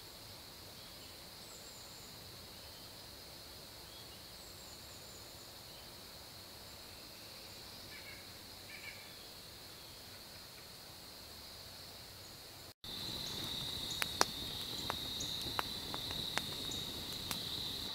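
A steady high insect chorus with a few faint bird chirps. About 13 seconds in, the sound cuts to a wood campfire crackling and popping in sharp clicks, with the insect chorus louder behind it.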